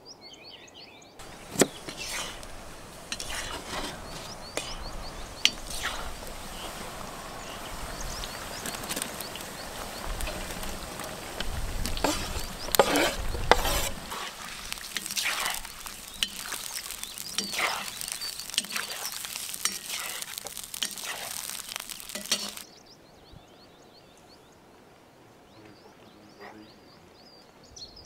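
Sliced bell peppers frying with a loud sizzle in a cauldron over an open fire, stirred with a metal utensil that clinks and scrapes against the pot. The sizzling starts about a second in and cuts off suddenly near the end, leaving birdsong.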